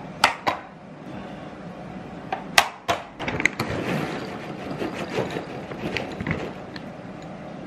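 A glass bowl set down on an acrylic stand with a few sharp clinks, then dry cat kibble poured from a bag into the glass bowl: a dense rattle of pellets starting about three seconds in and lasting about three seconds.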